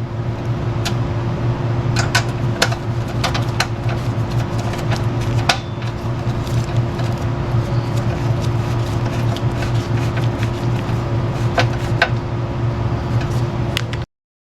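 Steady low machine hum, like a shop fan, with scattered light clicks and taps of hand tools and parts as the muffler cover and its T30 screw are refitted. The sound cuts off abruptly near the end.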